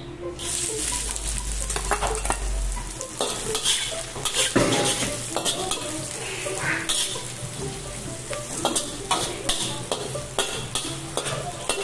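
Garlic and onion sizzling in hot oil in a stainless steel wok; the sizzle starts suddenly as they go in. A metal spatula scrapes and clinks against the wok as they are stirred.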